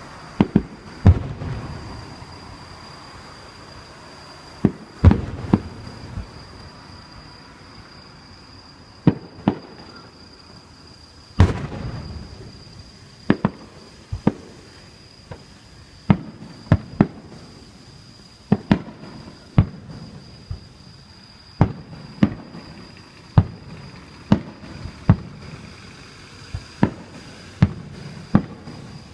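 Aerial fireworks bursting: a long run of sharp bangs at irregular spacing, some closely paired, several followed by a brief rumbling echo, with the loudest around a second, five seconds and eleven seconds in. A faint steady high-pitched tone sits underneath.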